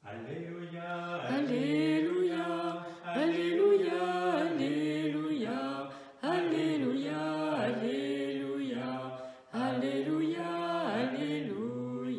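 A male voice singing a slow liturgical chant, with long held and gently bending notes, in three long phrases.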